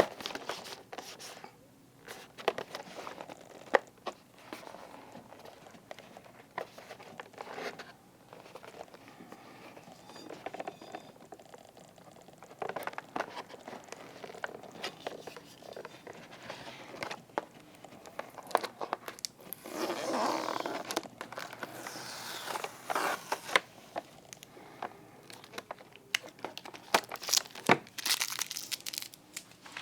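Transformers figure's toy packaging being handled and opened: plastic and cardboard crinkling and tearing, with many small clicks and taps. A longer, louder stretch of crinkling comes about twenty seconds in.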